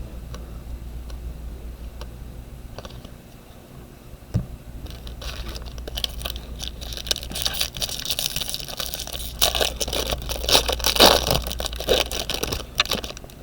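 Foil wrapper of a baseball card pack crinkling and tearing as the pack is opened, with cards being handled. It is sparse at first and becomes a dense crackling from about five seconds in until just before the end, over a steady low hum.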